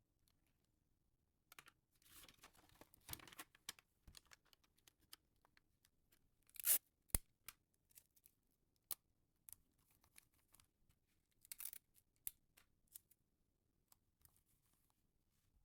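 Close-up handling noises: short tearing and rasping sounds with scattered sharp clicks, the loudest rasp about seven seconds in.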